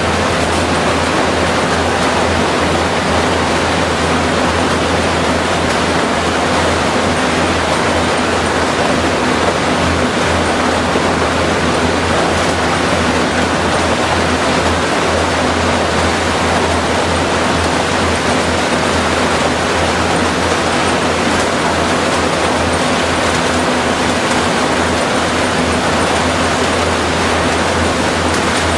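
Steady, loud industrial roar with a constant low hum, unchanging throughout: the running plant machinery of a lignite-fired power station hall.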